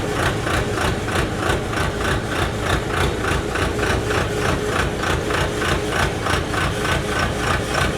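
A crawler-mounted pneumatic drill rig's engine running at a steady speed, with a fast, even pulsing rattle.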